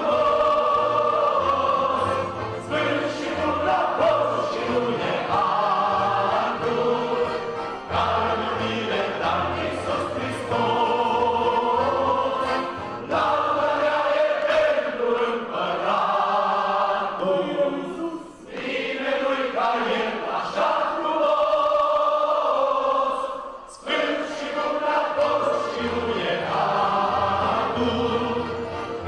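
Congregation and a lead singer singing a Romanian worship song, accompanied by accordions and guitar, with short breaks between phrases.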